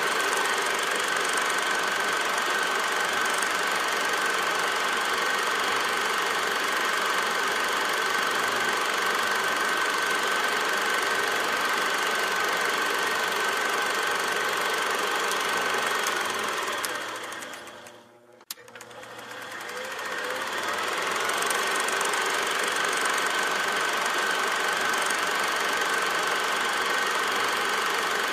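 Steady mechanical clatter with hiss and a constant high whine, of the kind a running film projector makes. About two-thirds of the way through it fades away to near silence, gives a single click, then fades back up.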